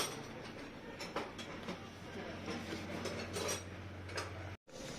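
Metal clinks and knocks of hand tools against metal parts, over a low steady hum. The sound cuts out completely for a moment near the end.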